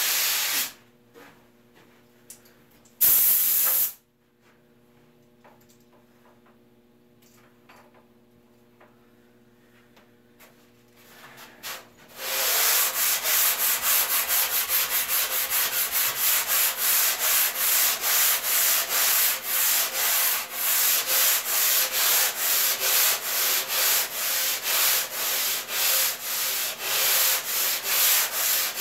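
Hand sanding block scrubbed back and forth on a surfboard's foam bottom as channels are shaped. A long quiet pause with only a faint steady hum is broken by one short loud rasp about three seconds in. From about twelve seconds in come quick, evenly repeated sanding strokes.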